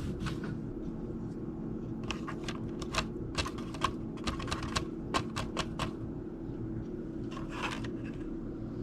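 A quick, irregular run of light clicks and taps, about fifteen over four seconds, in the middle, with a soft rustle near the end, over a steady low hum.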